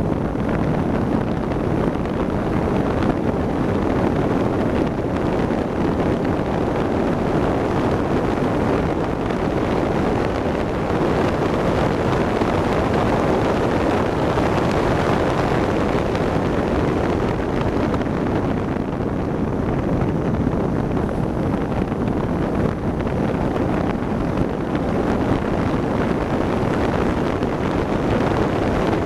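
Steady, loud wind rushing over the microphone in an open-cockpit track car driven fast on a circuit, with the car's engine and road noise blended underneath.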